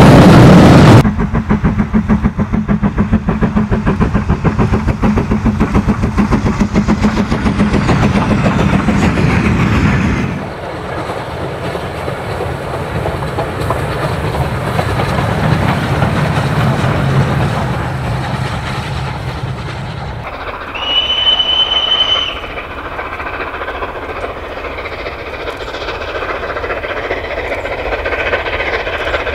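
Steam-hauled train passing close: the coaches' wheels clatter rhythmically over the rail joints, then the rebuilt Bulleid Merchant Navy Pacific 35006 is heard working. About two-thirds of the way through, a steam whistle gives one short, steady blast, and the train sound is quieter after it.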